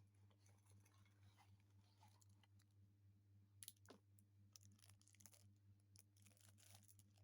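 Near silence: a steady low hum with faint scattered clicks, mostly in the second half.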